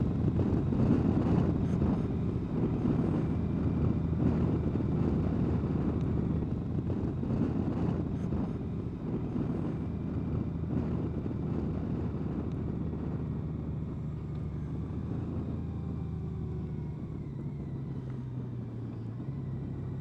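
Honda Gold Wing's flat-six engine running under way, with wind rushing over the microphone, getting quieter as the bike slows. Near the end the engine note drops lower.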